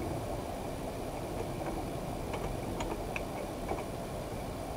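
Computer keyboard keys clicking faintly several times as a word is typed, over a steady low background rumble.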